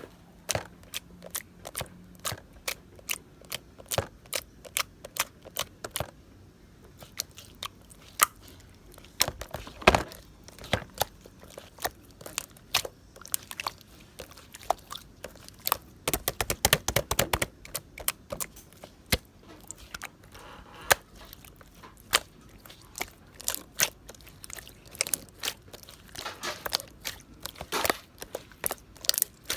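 Clear slime mixed with blue and purple being pressed and squeezed by hand, trapped air bubbles popping in a run of sharp, irregular clicks. The clicks come in quick clusters about ten seconds in and again around sixteen to seventeen seconds.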